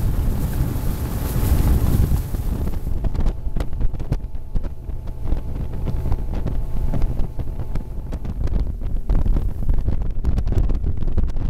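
Heavy wind buffeting the microphone of a bass boat running at speed, with the outboard motor and the hull on the chop underneath.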